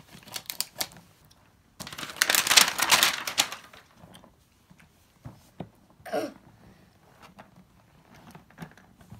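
Plastic packaging wrap being cut and pulled off: a few scissor snips at first, then a couple of seconds of loud crinkling and tearing plastic, followed by scattered small clicks and rustles of handling.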